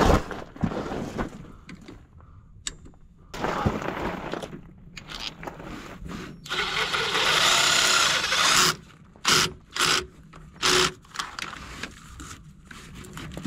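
Cordless power driver spinning the threaded parking-brake cable adjuster on a pickup to take up cable slack: one run of about two seconds, then three short blips. Clanks and scrapes of the tool and cable come before it.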